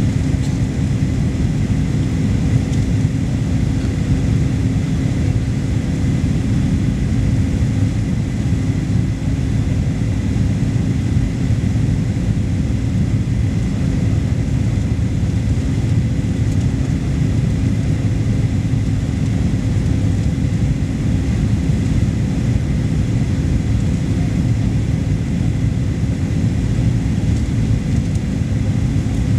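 Steady in-cabin noise of a Boeing 737 airliner descending to land: a constant low rumble of the jet engines and rushing air, with a steady hum over it.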